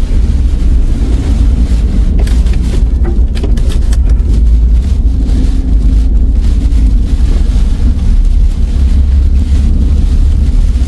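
Loud, steady low rumble of violent tornado wind buffeting the microphone, with a few brief sharp crackles or knocks about two to four seconds in.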